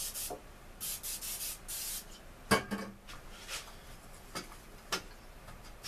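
Aerosol cooking spray hissing in a quick series of short bursts over the first two seconds, followed by a sharp knock and a few lighter clicks.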